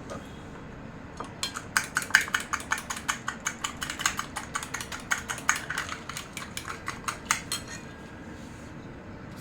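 Rapid clinking of a utensil against a dish, about six strikes a second for some six seconds, stopping shortly before the end.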